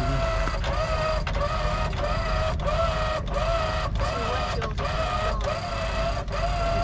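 A high mechanical whine, cut into even pulses about every two-thirds of a second, over a steady low rumble.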